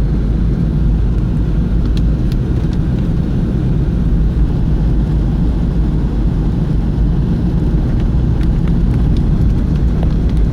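Steady low rumble inside a car's cabin during heavy rain, with a few faint, irregular ticks.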